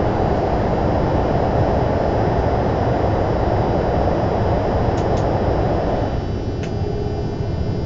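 Train running at speed through a tunnel, heard from the cab: a loud, steady rumble of wheels and air. About six seconds in it drops in level as the train leaves the tunnel, with a few sharp clicks around then.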